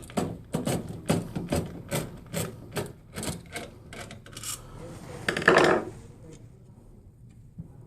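Screwdriver turning small computer drive-mounting screws: short scraping clicks, about two to three a second, as the bit twists in the screw heads. About five and a half seconds in comes one longer, louder scrape.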